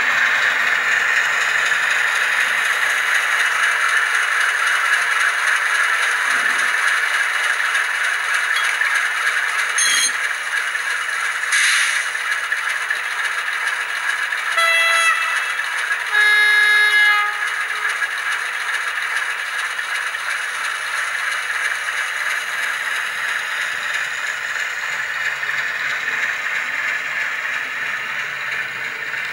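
Märklin H0 V36 model diesel locomotive running, its ESU sound decoder playing a steady diesel engine sound over the running noise. About halfway it sounds its horn twice: a short higher note, then a longer lower one, just after a brief hiss.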